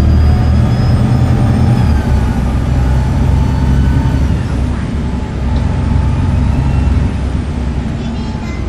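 Volvo B7TL double-decker bus's diesel engine pulling under load with a high turbocharger whistle above the engine note. The pitch drops away about two seconds in as the engine eases off, then the engine pulls again and backs off near the end.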